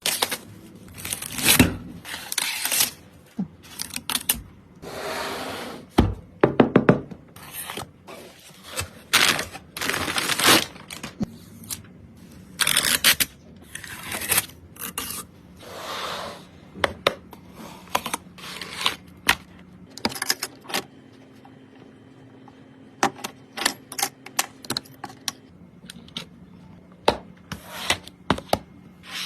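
PC components and packaging being handled by hand: irregular clicks, taps and scrapes, with a few longer rustling or sliding noises.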